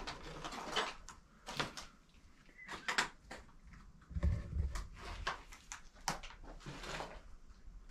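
Footsteps and handling noise in a debris-strewn room: scattered crackles, rustles and light knocks, with a couple of low thumps about four seconds in.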